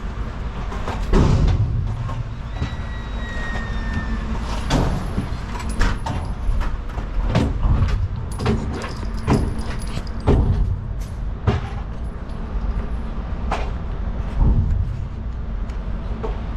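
Gunshots from shooters on the range, about fifteen sharp cracks fired at irregular intervals, over a steady low rumble.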